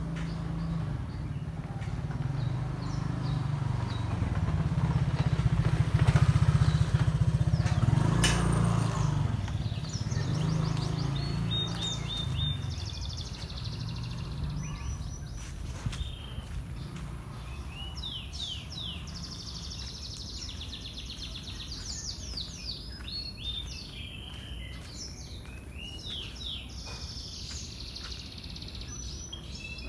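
A motor vehicle passes, its low engine rumble building to a peak about six to eight seconds in and then fading away. After it, birds chirp repeatedly in short, quick calls.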